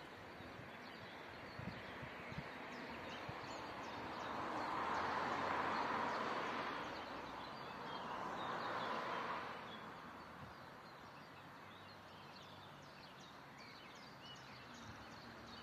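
Outdoor ambience of small birds chirping over a soft rushing noise that swells and fades twice.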